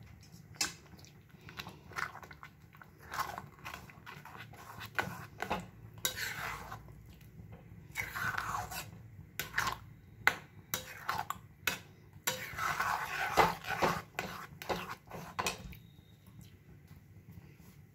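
A steel spoon stirring thick semai (vermicelli) kheer in a metal pan, with irregular scraping and clinking against the pan. It is louder in spells about six, eight and twelve to fifteen seconds in.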